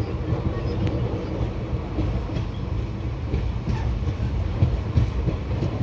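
Passenger coach running along the track, heard from its open doorway: a steady rumble of wheels on the rails with occasional sharper clicks.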